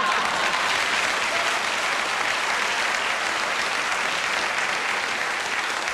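Audience applauding after a punchline, a dense, steady clapping that eases slightly toward the end.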